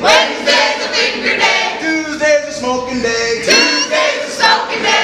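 A group of men and women singing a drinking chant together, loudly and in unison.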